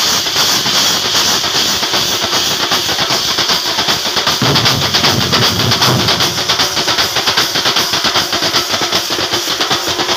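A large troupe of Kerala chenda drums playing a fast, loud, continuous rolling rhythm, with a bright metallic wash over it. A deeper layer joins about four and a half seconds in.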